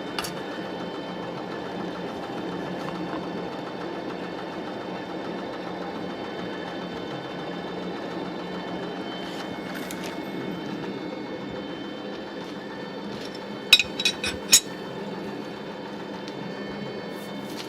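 Old metal lathe running with a steady mechanical hum. About fourteen seconds in come four sharp clicks in quick succession.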